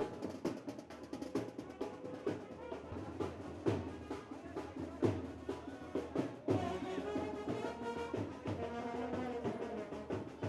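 Drumming from a temple prayer ceremony: quick, irregular drum strikes. About two-thirds of the way through, a wavering pitched melody joins over the drums.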